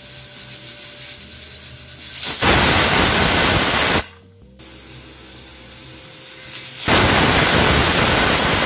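Stovetop pressure cooker whistling twice: steam hisses up from the weighted vent, bursts into a loud jet for about a second and a half, drops off, then builds again into a second loud blast near the end. The whistles are the sign that the cooker has reached pressure and are counted to time the cooking.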